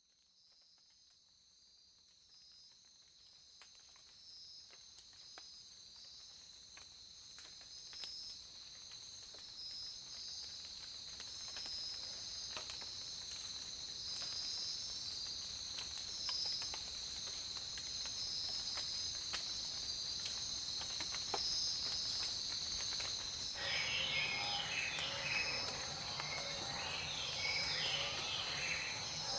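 A steady, high-pitched, pulsing insect chorus fading up gradually. About 23 seconds in, songbirds start singing over it with quick chirping calls.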